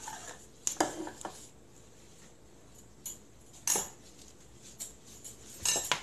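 A few short clinks and knocks of kitchenware being handled and set down on a counter, spaced a second or two apart with quiet between.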